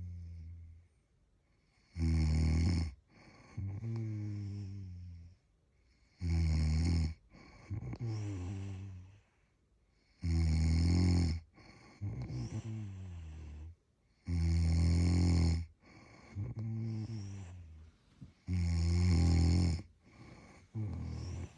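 Loud, rhythmic snoring: five deep buzzing snores on the in-breath, about one every four seconds, each followed by a quieter out-breath with a faint whistle.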